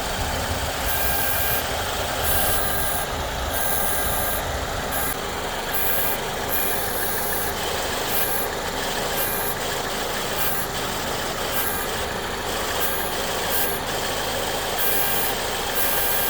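2014 Ford Escape 1.6L idling with its externally controlled variable-displacement AC compressor running, giving a high-frequency buzz over the engine noise that cuts in and out in stretches. The owner is unsure whether this buzz after the AC has run a while is normal or a compressor fault.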